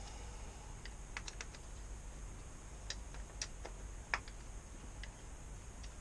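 Scattered light clicks and taps of hand tools at work on a motorcycle's fork yokes, about ten at uneven spacing, the loudest a little past four seconds in.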